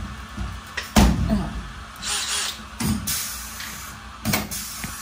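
Workshop handling noises: a few sharp knocks and clunks, the loudest about a second in, with a short scraping hiss around the middle.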